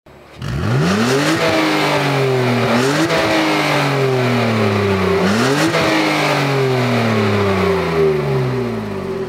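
BMW Z4 E85's M54 straight-six engine free-revving through its twin exhaust. The revs rise quickly three times, about half a second in, near three seconds and after five seconds, and each time fall back slowly.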